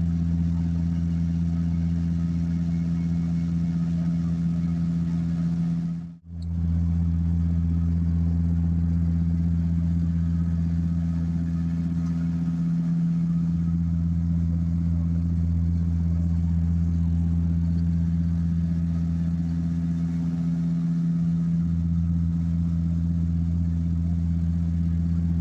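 Steady low engine drone inside a passenger aircraft's cabin, with an even hum that holds a fixed pitch. It drops out for a moment about six seconds in, at an edit cut, then carries on.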